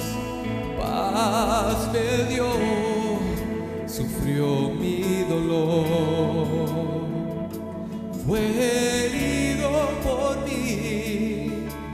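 Slow live worship music: an instrumental stretch of a praise song between sung lines, with sustained chords and a wavering melody.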